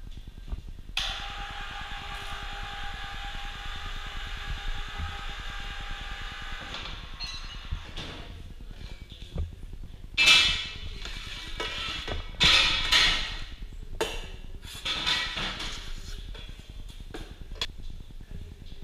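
Stainless steel cheese-press parts being handled: several loud scraping clatters of metal on metal in the second half, after a steady hiss lasting about six seconds.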